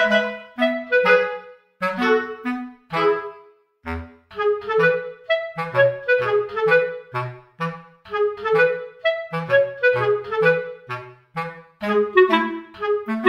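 Background music: a light instrumental tune of quick, short notes over a simple bass line.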